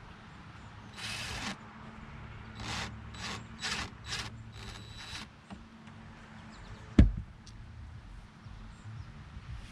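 Hands-on work on boat seat parts: a short scraping burst, then five or six quick scraping strokes, and a single sharp knock about seven seconds in, over a low steady hum.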